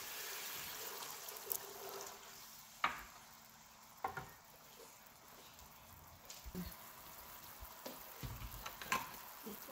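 Onion-and-spice sauce sizzling softly in a nonstick pan, thinned with a little water, stirred with a wooden spatula at first. A few light knocks break in.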